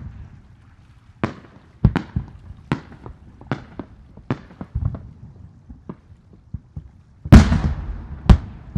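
Aerial fireworks shells bursting: about ten sharp bangs at irregular intervals, each with a rolling echo, the loudest about seven seconds in and another a second after it.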